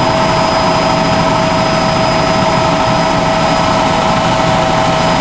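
Light aircraft's engine and propeller heard from inside the cabin in steady cruise: a loud, unchanging drone with a few steady whining tones over it.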